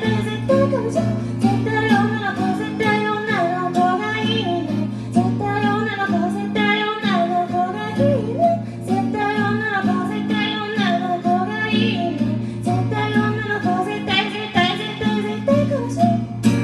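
A woman singing while playing an acoustic guitar, a solo live performance with her voice over the guitar's steady chords.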